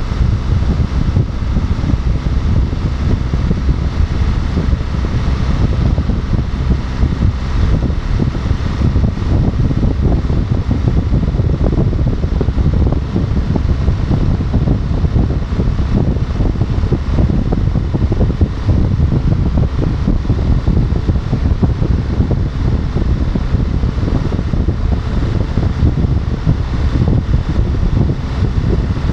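Motorcycle riding at highway speed, heard as steady wind rush buffeting the microphone, a loud low rumble with no clear engine note above it.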